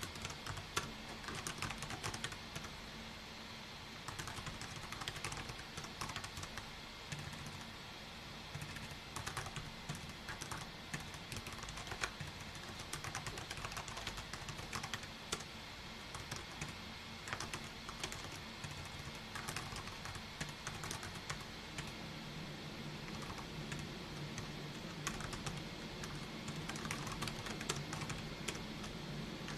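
Typing on a computer keyboard: irregular runs of keystroke clicks, with a steady low hum underneath.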